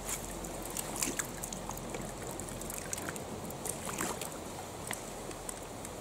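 Shallow mountain stream running steadily, with a few short, sharp taps and small splashes scattered through it.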